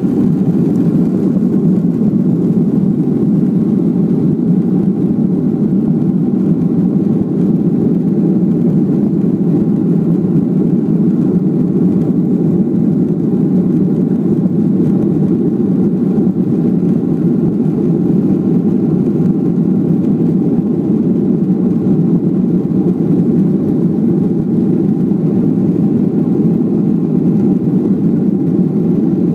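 Steady, loud drone of a Boeing 737-400's CFM56-3 turbofans and rushing air, heard inside the cabin as the airliner climbs out after takeoff. The sound holds even throughout, with no change in pitch or level.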